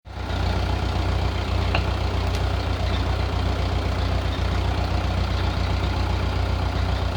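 A heavy engine running steadily at an even speed, a low, constant drone.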